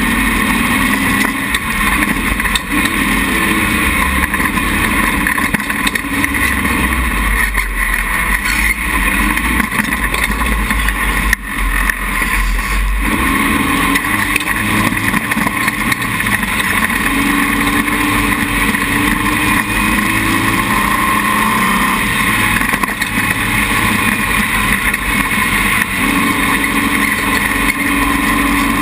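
Dune buggy engine running under way across soft sand, heard from the front of the car, its note rising and falling with the throttle. A single brief knock about eleven seconds in.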